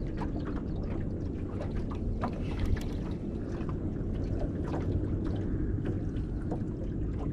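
Steady low rumble of wind and choppy water against a small aluminium boat's hull, with scattered light clicks and taps.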